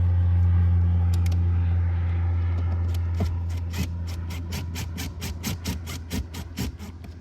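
A steady low hum fades gradually. From about three seconds in, a hand tool clicks repeatedly, a few clicks a second, as the boat's jump seat screws are turned in.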